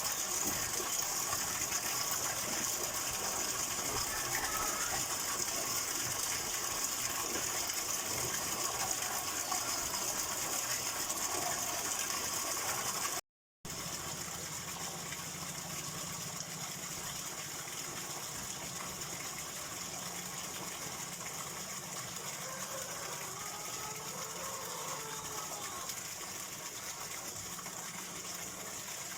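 Flowing water rushing steadily, a stream or small water channel, with a steady hiss. It cuts out briefly about 13 seconds in, then continues a little quieter.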